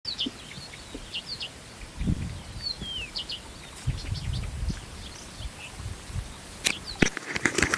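Small birds chirping in short high notes, some sliding downward, over gusts of wind rumbling on the microphone. A few sharp clicks near the end.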